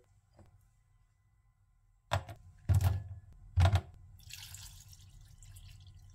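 Three dull knocks about two, two and three quarters and three and a half seconds in, then a kitchen tap running into a sink, with drips.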